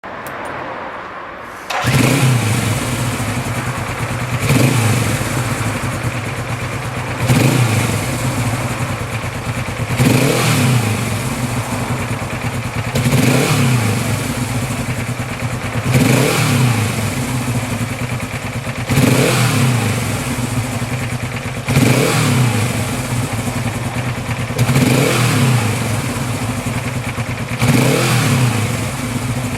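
Suzuki GS400's air-cooled parallel-twin engine starting up about two seconds in, then idling with the throttle blipped about every three seconds, each rev rising and falling back to idle.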